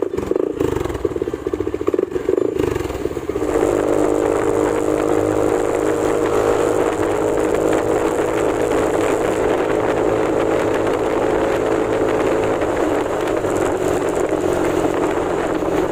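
Kymco Xciting S400i scooter's single-cylinder engine running through a hollowed-out aftermarket exhaust pipe. It is uneven for the first three seconds or so, then settles into a steady, even drone.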